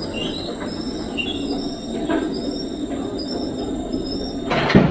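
Nissan Serena C25 on the move, with road rumble, a few knocks and short repeated high squeaks, and a loud clunk near the end. The knocking is the sign of a worn-through rubber bushing on the subframe (member), which lets the metal parts move up and down and strike each other.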